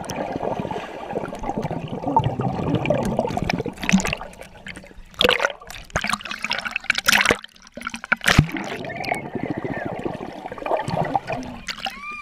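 Swimming-pool water bubbling and sloshing around a GoPro camera, first underwater, then at the surface. Several sharp splashes come in the middle as the camera breaks through the water.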